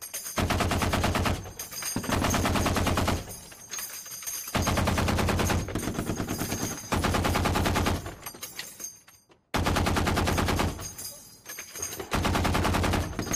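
Browning M2 .50 caliber heavy machine gun firing about half a dozen short bursts, each lasting about a second, with each burst's echo fading in the gaps between them.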